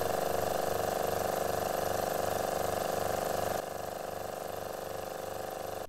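Electric vacuum pump running, pumping the air out of a glass bell jar: a steady mechanical hum with a fast, even pulsing. It becomes quieter about three and a half seconds in and cuts off suddenly at the end.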